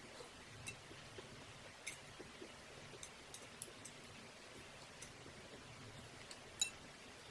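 A person eating at close range: quiet chewing and mouth noises with a scattering of sharp clicks and smacks, about seven in all, the loudest near the end.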